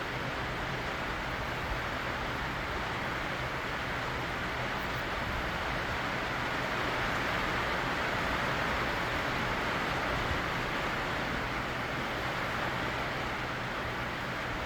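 Steady hiss of heavy rain from a thunderstorm, swelling slightly midway and easing again.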